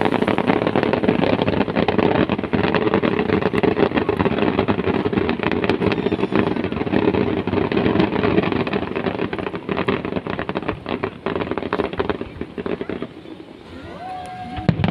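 Fireworks crackling: a dense, rapid stream of small pops that starts suddenly and thins out about thirteen seconds in.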